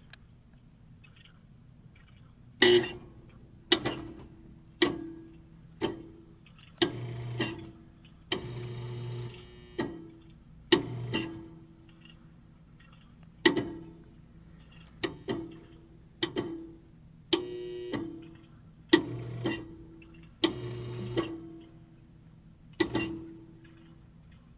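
Cinema loudspeakers behind the screen playing a film's soundtrack loud: a string of sharp hits at uneven intervals of about one to two seconds, each ringing out, with a few longer noisy stretches in between.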